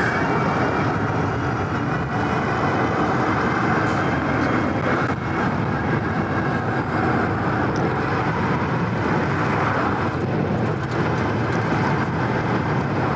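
Steady wind rush and road noise from riding an electric bike at speed, with traffic running on the road alongside.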